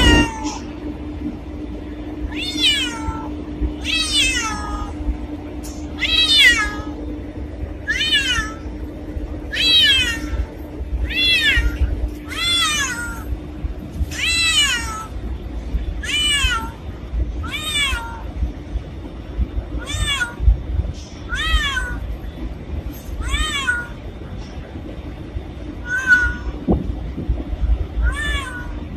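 Domestic cat meowing over and over, a falling meow about every one and a half seconds.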